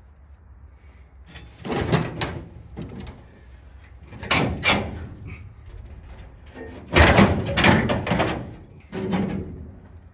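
Repeated knocks and clattering rattles, in several bursts a second or two apart, the loudest about seven seconds in.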